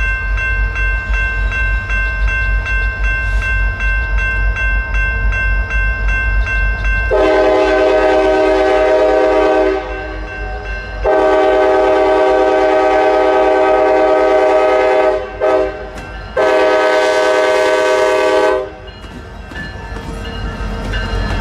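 Norfolk Southern diesel freight locomotives running as they approach, then the lead unit's air horn sounds several notes at once in the grade-crossing pattern: long, long, short, long. The engines' low rumble swells near the end as the units pass close by.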